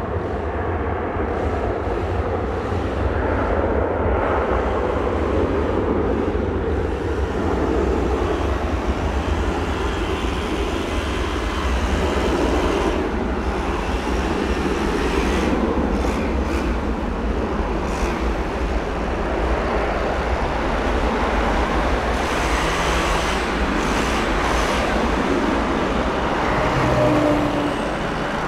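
Boeing 757-300's twin turbofan engines at takeoff thrust, a steady loud jet noise with a low rumble as the airliner accelerates down the runway and lifts off near the end.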